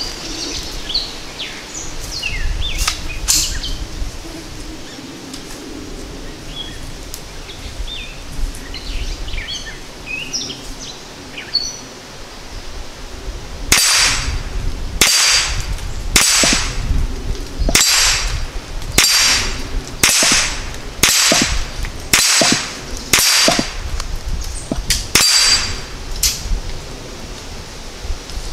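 Ruger 10/22 rifle firing ten rounds of CCI Quiet 22 Semi-Auto .22 LR, about one shot a second, each shot followed by the ringing clang of a steel gong target. The rifle cycles every round. Birds chirp before the shooting starts about halfway in.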